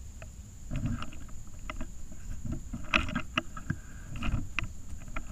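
Close handling noise of a rifle with a scope-mounted camera as it is moved off its aim: irregular knocks, clicks and rustles, beginning about a second in and loudest around the middle.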